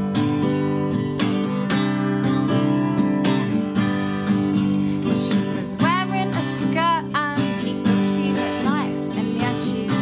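Acoustic guitar strummed in a steady rhythm, with a woman singing over it from about halfway through.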